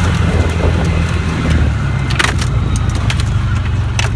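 Bobcat 3400 UTV engine running steadily as it drives over rough ground, with a few sharp knocks and rattles from the jolting vehicle, the loudest about two seconds in.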